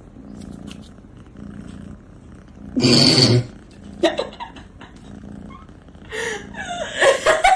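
Domestic cat purring, a low steady pulsing. About three seconds in there is a loud, short, noisy burst, and near the end there are louder pitched sounds.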